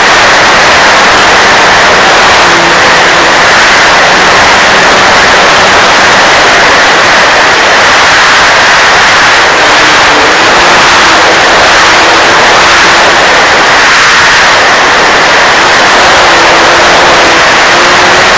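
Loud, steady wind-like hiss over the microphone, with the faint whine of an RC model plane's motor and propeller rising and falling in pitch as it flies.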